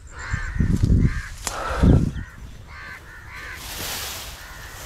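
Crows cawing over and over. Heavy low thuds and rustling come as someone pushes through tall rice plants that brush the camera, and a hissing rustle of leaves sets in after about three and a half seconds.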